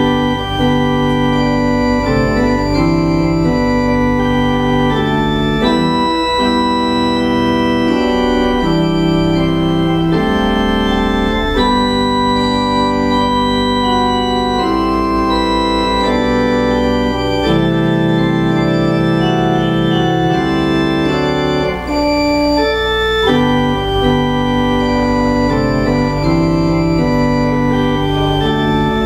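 Church organ playing a postlude of slow, held chords that change every second or two.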